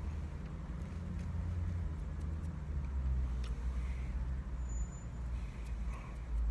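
Steady low rumble of motor vehicles, with a few faint clicks.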